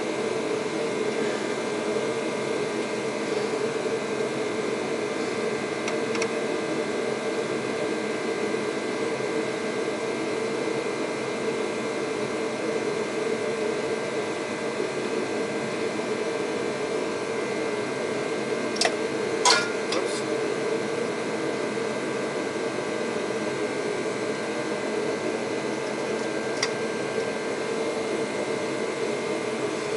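Shop heater running with a steady roar. A few sharp clicks of tools being handled cut through it, the loudest about two-thirds of the way in.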